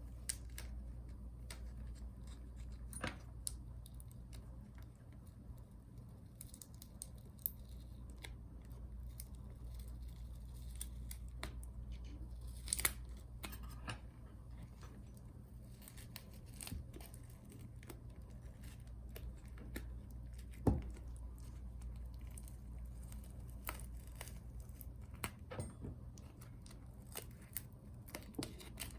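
Faint, scattered small clicks and scrapes of hand tools working on small parts inside an opened MacBook Pro, over a steady low hum. A few sharper clicks stand out, one about halfway through and another about two-thirds of the way in.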